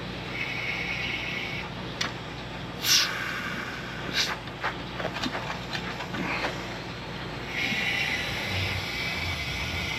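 Compressed air hissing into a pneumatic air jack as its fill valve is open, in two spells: briefly near the start, then steadily from about three-quarters of the way in. Between them are a few sharp knocks and clatters, the loudest about three seconds in.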